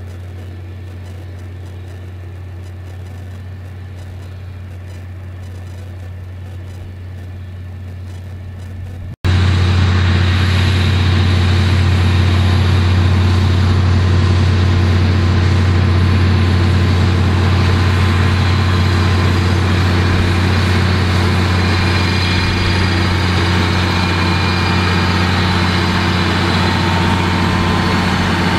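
Massey Ferguson 7480 tractor's six-cylinder diesel engine running steadily under load while pulling a front rotary harrow and a potato planter. It is fainter at first and much louder from about nine seconds in.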